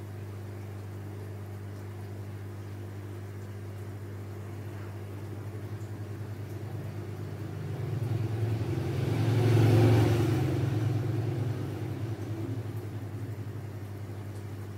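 A steady low electrical hum, with a vehicle passing by that swells and then fades, loudest about ten seconds in.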